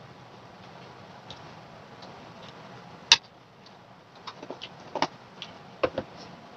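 A few short clicks and taps of a metal spoon and glass jar against tableware: one sharp click about three seconds in, then a cluster of lighter clicks a second later, over a faint low hum.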